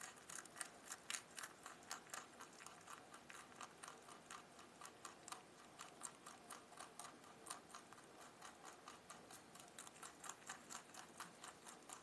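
Rabbit chewing leafy green stems close to the microphone: quick, crisp crunching, about four or five bites a second.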